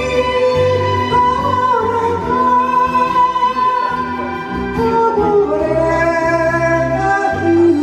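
Karaoke performance of an enka song: a singer's voice through a handheld microphone, holding long wavering notes over a recorded instrumental backing track.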